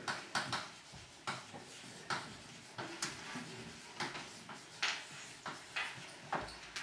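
Chalk on a blackboard as words are written: an irregular run of sharp taps and short scratches.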